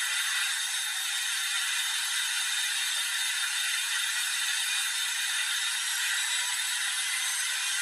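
Samsung washing machine on its spin cycle: a steady, even rushing noise with a thin whine in it, unchanging throughout.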